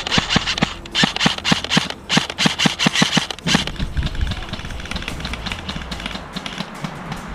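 Airsoft guns firing in a rapid run of sharp cracks for about three and a half seconds, then fainter, scattered shots.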